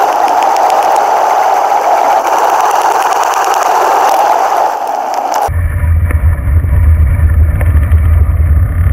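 Wind and road noise on a bicycle-mounted GoPro camera's microphone while riding on asphalt: a steady rushing hiss that changes abruptly about five and a half seconds in to a deep, heavy rumble of wind buffeting.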